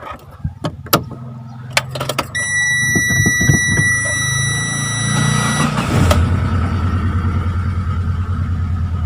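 Chery QQ engine being started: a few clicks, then a steady high electronic tone for about three seconds while the starter turns it over, and about six seconds in the engine catches and settles into an uneven idle. The idle is misfiring, which the mechanic traces to a failed high-tension lead on cylinder number 2.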